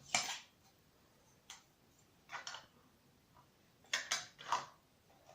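A metal paper clip being slid onto folded paper flaps to hold them together: scattered short clicks and paper rustles, with three close together about four seconds in.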